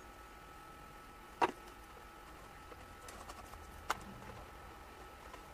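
Two sharp clicks about two and a half seconds apart, with a few faint ticks between them, from small parts being handled at a motorcycle's tail section; a faint steady hum runs underneath.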